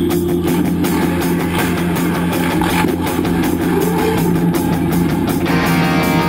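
Background music with a steady drum beat and guitar; a fuller guitar part comes in about five and a half seconds in.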